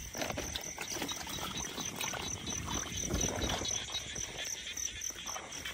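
Steady chirring of crickets or similar night insects, with rustling and small knocks close by.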